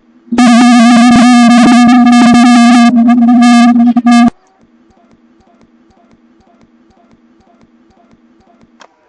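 A horn blown very loud at one steady low pitch for about four seconds, cutting off suddenly; after it only faint, regular ticking remains.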